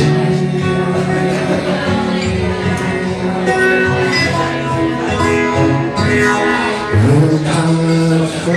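Song played on a strummed acoustic guitar, with held low notes sounding beneath.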